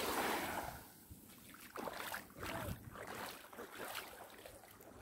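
Small waves lapping and washing up on a sandy shore. A gust of wind on the microphone in the first second dies down, leaving the quieter wash of the water.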